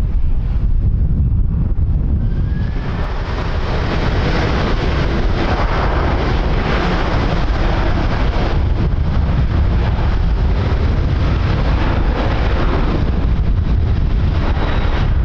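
Strong wind buffeting the microphone, with the noise of an aircraft's engines swelling in about two and a half seconds in and carrying on steadily over the wind.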